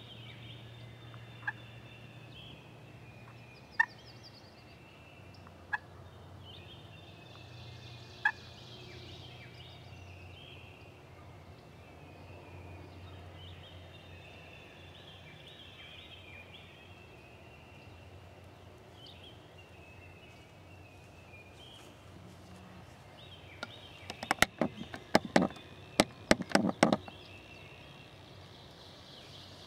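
Wild turkey calling: a few single sharp clucks a couple of seconds apart, then about 24 s in a loud rapid run of calls lasting about three seconds.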